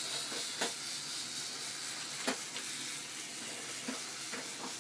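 A steady hiss with three light, sharp clicks about a second and a half apart, likely from small hard objects knocking.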